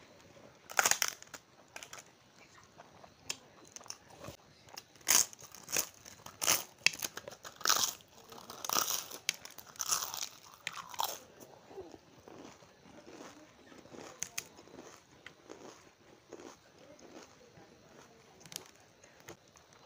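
Thin fried crisps being broken by hand and bitten: a series of loud, sharp crunches in the first half, then softer chewing and mouth sounds.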